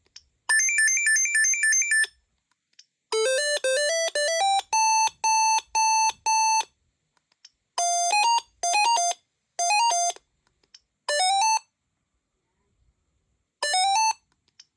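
Gigaset C630A cordless phone playing ringtone melodies of bright electronic beeping notes with pauses between phrases. First a fast warbling trill, then a rising run of notes ending in five evenly repeated notes, then a short rising three-note figure repeated several times with gaps.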